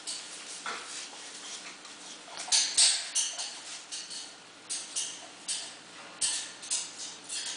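Adult boxer and boxer puppy play-wrestling on a blanket-covered futon: a string of short, irregular rustling and scuffling noises, the loudest pair about two and a half seconds in.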